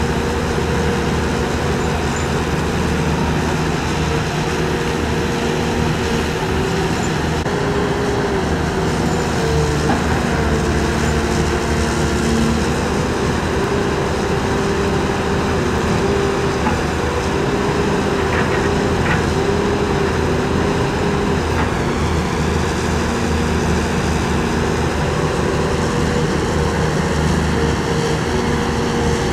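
Tracked excavators' diesel engines running steadily while the machines dig and swing their buckets in mud, with a pitched whine that wavers slightly.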